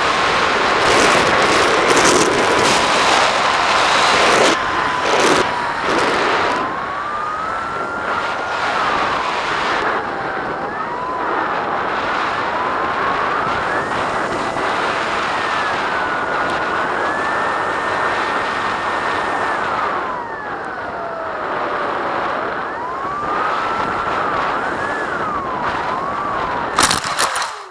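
Electric pusher motor and propeller of a Bixler RC foam plane, heard from the onboard camera, whining and rising and falling in pitch with the throttle over wind rush. The wind gusts heavily in the first few seconds. Near the end there is a brief loud burst of noise, then the sound cuts off.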